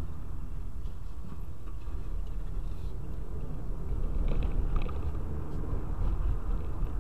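Steady low rumble of a car driving on a paved road, tyre and engine noise heard from inside the cabin. A few faint rattles come about halfway through.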